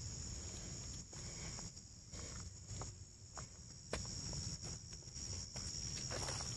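Steady high-pitched chorus of insects such as crickets, with scattered soft crunches and rustles of footsteps moving through undergrowth.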